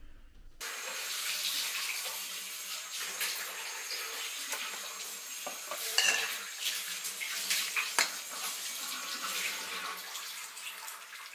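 Metal potato masher working steamed taro and ube in a stainless steel bowl: scraping and squishing with sharp clinks against the bowl, the loudest about six and eight seconds in, over a steady hiss that starts under a second in.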